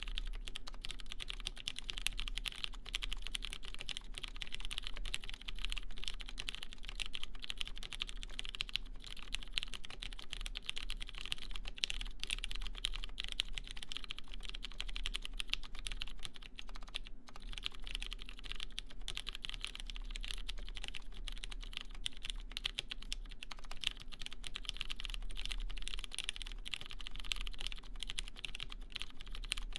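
Continuous typing on a Xeno custom mechanical keyboard with lubed Cherry MX Clear tactile switches in a brass half plate, under GMK keycaps: a steady stream of keystrokes with a brief pause about seventeen seconds in.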